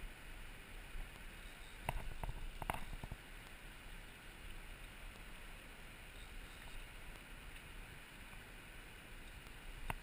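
River water running steadily over a shallow stony pool, with a few short sharp clicks about two to three seconds in and again near the end.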